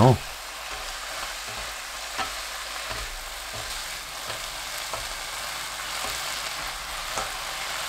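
Julienned burdock, king oyster mushroom and onion sizzling in oil in a frying pan over high heat, with a soy-sauce seasoning just added. The steady sizzle has a few light taps of the stirring utensil against the pan.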